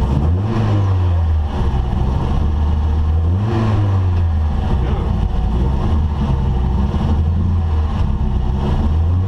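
Rally car's engine idling, heard inside the cabin, with the revs briefly raised twice: about half a second in and again around four seconds in.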